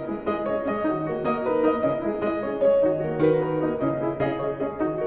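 Background music: a piano melody with steady notes, no speech.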